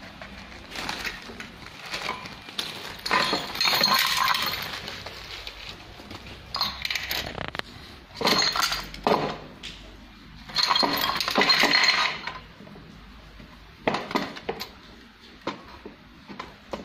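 Small metal parts and bobbins clinking and rattling in an industrial sewing machine's oil pan as they are handled, in irregular bursts with short pauses between.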